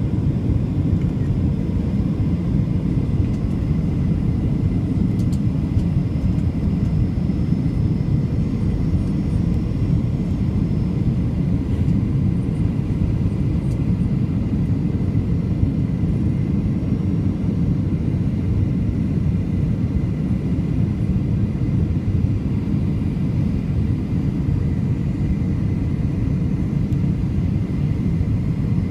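Steady cabin noise of a Boeing 737-800 in flight, heard from a seat over the wing: a low, even rumble of airflow and its CFM56 turbofan engines, with a faint steady high whine above it.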